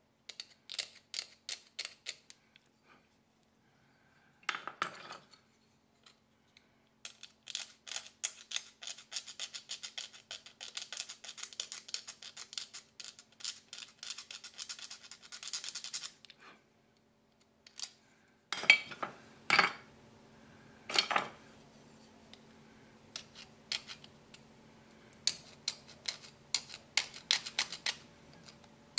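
Small carving knife shaving and scraping a tagua nut (vegetable ivory) in short quick strokes, in clusters with brief pauses, a few of the cuts louder about two-thirds of the way through.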